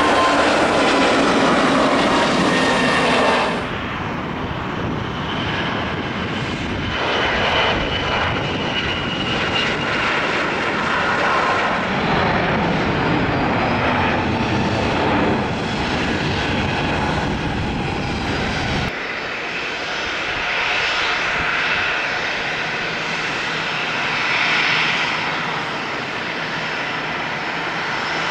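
Business-jet turbofan engines throughout. First a whine that falls in pitch; then, after a cut, a jet taking off with a steady roar; then, after another cut about two-thirds of the way in, a jet taxiing with a lighter, steady whine.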